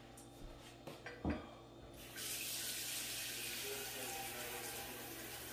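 A few short knocks, the sharpest about a second in, then a kitchen sink tap turned on about two seconds in, water running steadily into the sink.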